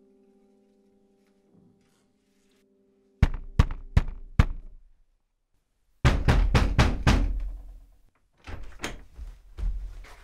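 Knocking at a door: four loud, evenly spaced knocks, then after a short pause a fast burst of heavy pounding, followed by a few more scattered thuds. A held musical chord fades out just before the knocking.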